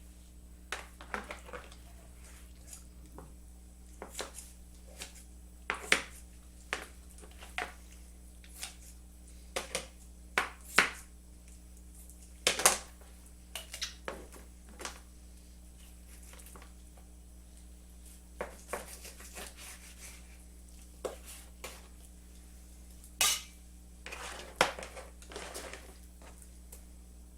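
Knife and kitchen shears working on a raw whole chicken, with irregular sharp clicks and taps of the blades against the cutting board and bowl, broken by a quiet spell about midway.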